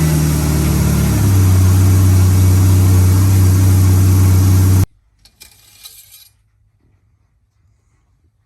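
1996 Dodge Dakota engine idling just after an oil change, its note settling lower about a second in. The sound cuts off abruptly about five seconds in, leaving a brief faint hiss and then near quiet.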